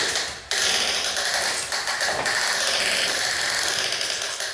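Large plastic toy dump truck being pushed across a tiled floor, its hard plastic wheels rolling and rattling in a steady, rough grinding noise, with a brief break about half a second in.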